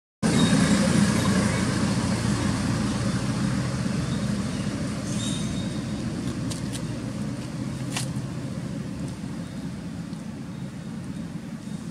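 Motor vehicle passing on a nearby road, its engine and tyre noise loudest at first and slowly fading as it moves away.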